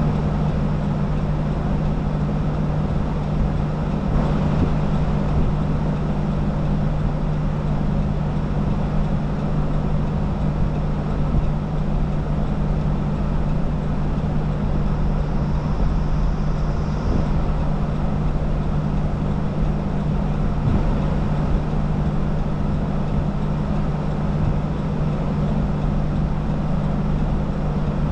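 Steady road and engine noise of a moving car, an even rushing noise with a constant low drone underneath.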